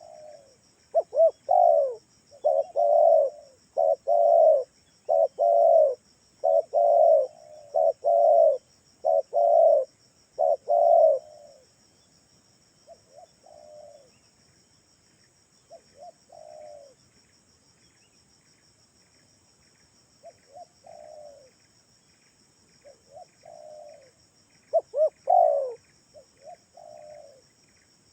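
Spotted dove (tekukur) cooing, a lure call: a run of about nine loud coos over the first dozen seconds, then sparse fainter coos, and a louder cluster near the end. A faint, steady high insect trill runs underneath.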